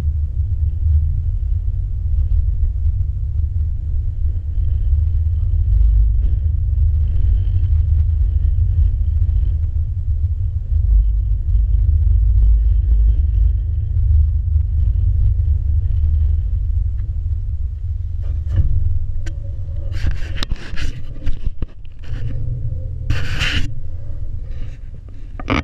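Wind buffeting a low-mounted action camera's microphone, a steady deep rumble. Starting near the two-thirds mark, a run of knocks and scrapes as the camera shifts against the metal fence, loudest just before the end.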